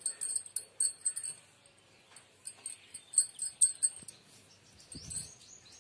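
Light metallic clinking and jingling from stirring flour, cocoa powder and oil in a stainless steel bowl, in two bursts of quick clinks a few per second. A soft knock about five seconds in.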